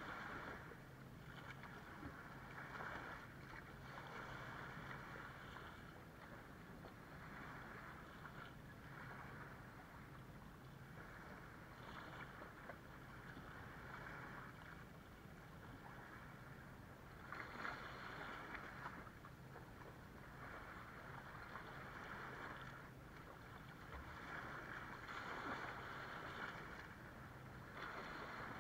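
Small waves washing up the sand and around the rocks, in soft surges every few seconds, with a faint steady low hum underneath.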